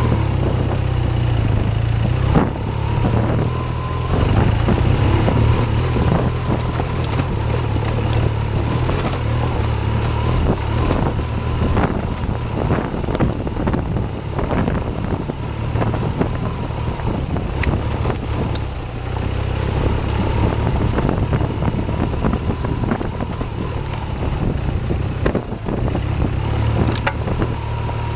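BMW R 1200 GS boxer-twin engine running steadily under way on a dirt track, with scattered sharp knocks and clicks throughout.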